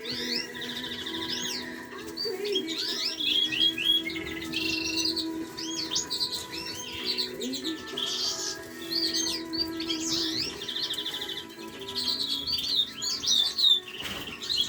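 Many caged canaries and finches singing and chirping at once, with rapid trills and quick rising and falling notes, over a steady low hum.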